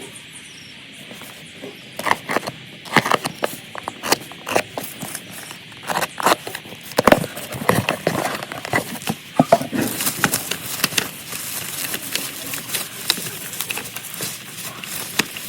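Packaging being handled and opened: an irregular run of sharp clicks, taps and crackles, turning into denser crinkling for the last few seconds, like plastic wrapping being pulled off.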